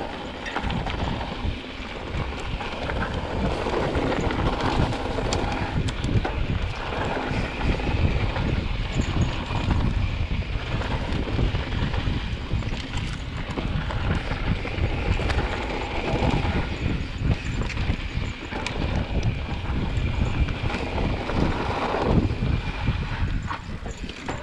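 Mountain bike ridden fast down a dirt singletrack: wind buffeting the handlebar-mounted camera's microphone over tyre noise on dirt, with the bike rattling and knocking irregularly over bumps.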